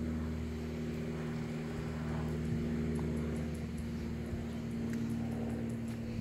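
A motor running with a steady hum that holds several constant low pitches.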